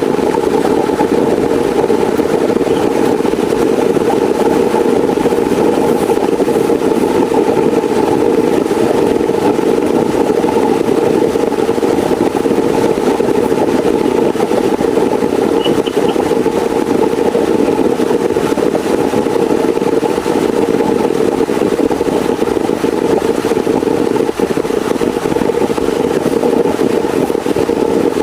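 Heavy rain falling steadily, a dense, even rush with no breaks.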